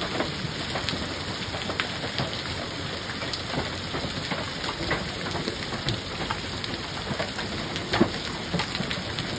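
Heavy rain pouring steadily, with hailstones striking hard surfaces as sharp knocks scattered through it; the loudest hit comes about eight seconds in.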